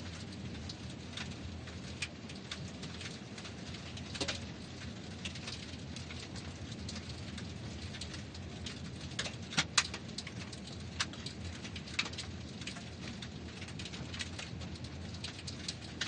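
Car tyres rolling over gravel: a steady low rumble under continual crackling and sharp stone pops. A few louder pops come close together about ten seconds in.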